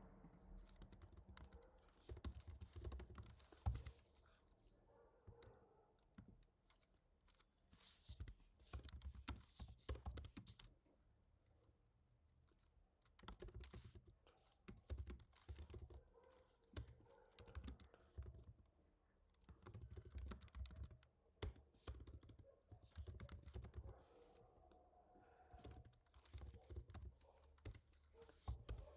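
Faint typing on a computer keyboard: irregular runs of keystroke clicks broken by short pauses.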